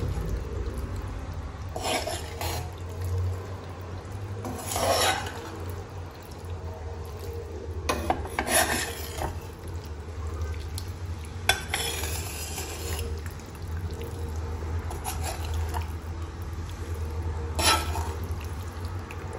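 A metal spoon stirring cooked okra stew in a speckled granite-coated pan: soft wet stirring with irregular scrapes and clinks of the spoon against the pan, over a steady low hum.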